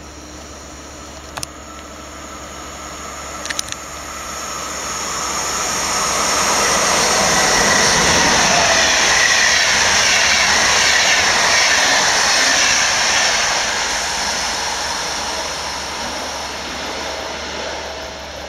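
Berlin–Warsaw Express passenger train, hauled by an EU44 Husarz electric locomotive, passing at speed: the rush of wheels and coaches swells up, peaks for several seconds as the coaches go by, then fades as the train moves away. Two brief sharp clicks come early, about a second and a half and three and a half seconds in.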